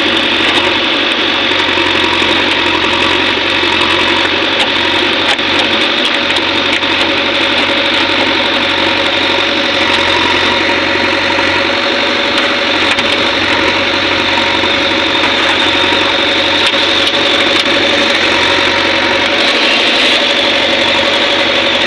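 Heavy diesel machinery engine running steadily at an even speed.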